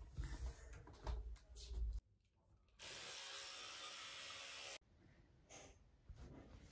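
Bedding being flung and spread over a bed, giving soft thumps and fabric rustling. After a short hush comes a steady rushing hiss for about two seconds, which cuts off suddenly.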